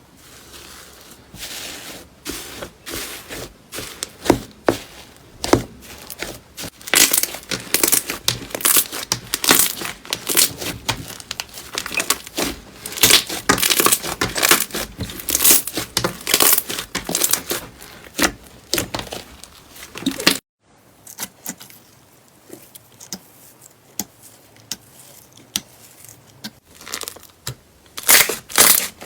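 Slime being squeezed and pressed, making rapid sticky crackles and pops. The crackling is dense and loud for most of the time, then cuts off abruptly about two-thirds of the way through. It resumes as quieter, sparser crackles that grow louder near the end.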